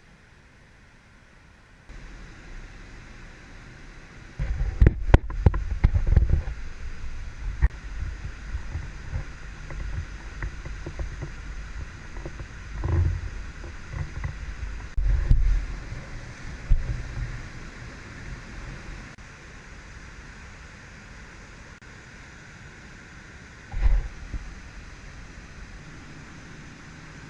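Steady rushing of the South Esk River in flood, with gusts of wind buffeting the microphone, hardest about five seconds in, around fifteen seconds and once more near the end.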